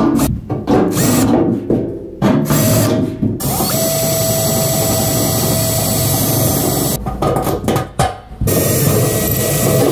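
Cordless drill cutting through the thin sheet-steel floor of a toolbox: several short start-stop bursts, then one steady whining run of about three seconds, then more short bursts near the end.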